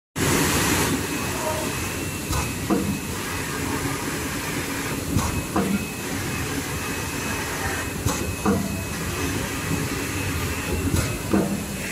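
EPE foam sheet cutting machine running steadily, with a repeating cycle about every three seconds: a sharp click, then a short falling sound.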